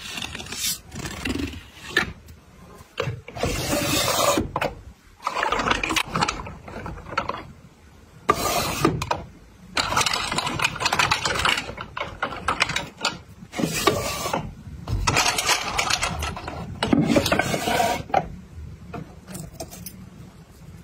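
Close-up handling sounds in irregular bursts of a second or two: paper cards rustling as they are flipped through, clear plastic drawers sliding, and pink nail files shuffled and set down.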